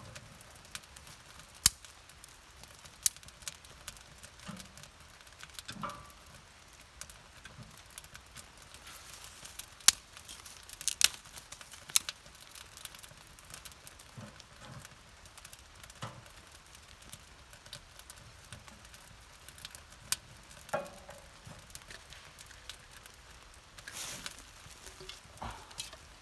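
Damp firewood burning in a small portable wood stove: irregular sharp crackles and pops over a faint, steady sizzling hiss.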